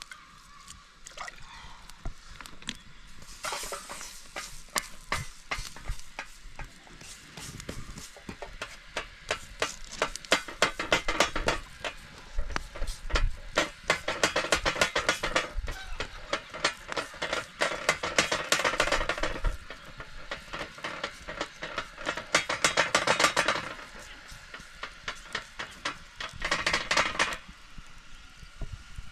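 Bread dough being worked by hand, in bursts of quick, rhythmic strokes lasting a few seconds each, with short pauses between.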